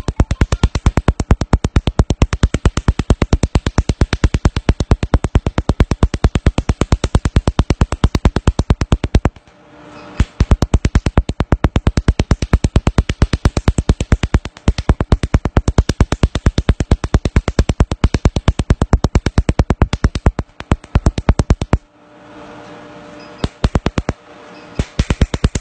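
Cosmetic laser handpiece firing rapid sharp snapping pulses, about six a second, on black carbon paste spread over the skin: a carbon laser peel. The firing pauses about nine seconds in and twice near the end, where only the machine's steady hum is left.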